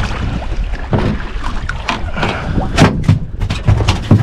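Knocks and thumps of a red snapper being hauled by hand over the side of a small fibreglass boat onto the deck, the loudest about three seconds in and again near the end, over a steady low rumble of wind on the microphone.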